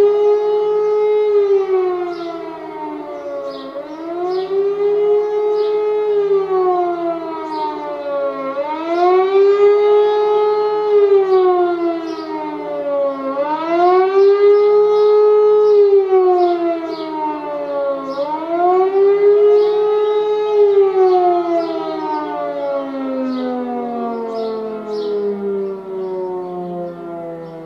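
E57 motor siren sounding the German public-warning signal: a howl that rises and falls about every four and a half seconds, peaking near 420 Hz. About 21 s in, the rising and falling stops and the pitch sinks slowly and steadily as the siren's rotor winds down at the end of the signal.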